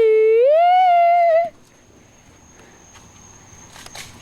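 A boy's long, loud wordless yell that rises in pitch in two steps and cuts off about a second and a half in. It is followed by a faint steady high-pitched tone and a couple of sharp clicks near the end.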